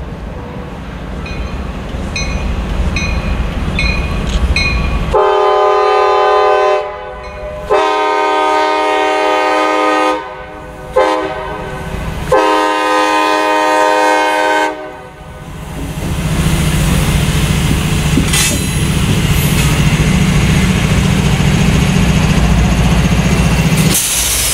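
Air horn of a leading CSX SD70MAC diesel locomotive sounding the grade-crossing signal: long, long, short, long. A bell dings steadily before the horn starts. Afterwards the two light diesel locomotives rumble past close by.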